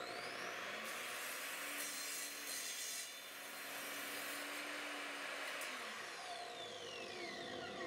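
Evolution 10-inch sliding miter saw with its 24-tooth blade winding up with a rising whine, then cutting down through a 2x4 with nails in it. Near the end the motor spins down with a falling whine.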